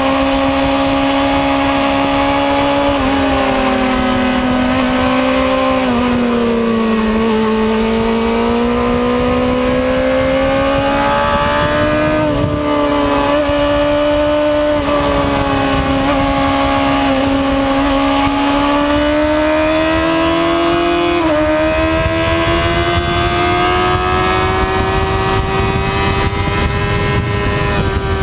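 Racing motorcycle engine running hard on track, heard from onboard. Its pitch climbs and falls with speed, with several abrupt jumps where gears change.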